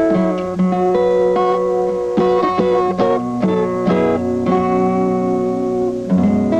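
Instrumental guitar music: plucked notes ringing on and overlapping over a held low note.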